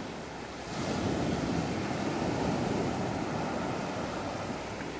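Sea waves breaking and washing onto a sandy shore. The surf grows louder a little under a second in, then stays steady.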